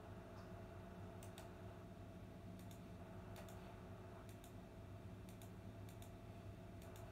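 Near silence: room tone with a low steady hum and faint, sharp paired clicks about once a second.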